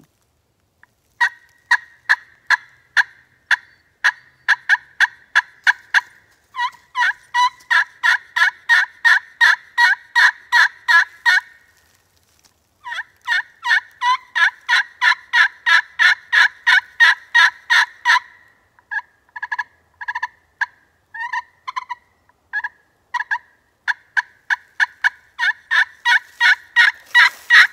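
Slate-over-glass turkey pot call played with a Purple Heart striker, giving a sharp, high-pitched yelp. It sounds as four long runs of quick, evenly spaced yelp notes, with a few single notes scattered between the third and fourth runs.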